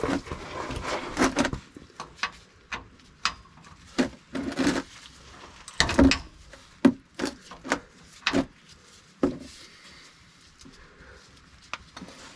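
A 24 mm wrench working a plug on a Toyota Sequoia's rear differential: irregular knocks and clanks of tool on metal, a dozen or so spaced unevenly, after a rustling stretch in the first second and a half.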